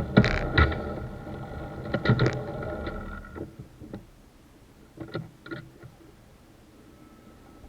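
An engine idling steadily, with a few knocks over it, shut off about three and a half seconds in; a few sharp clicks follow.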